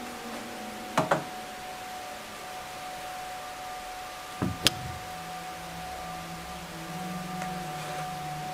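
A steady electronic drone of one clear tone with fainter tones under it, with a lower hum joining about halfway through. Two pairs of sharp knocks stand out, about a second in and again about four and a half seconds in.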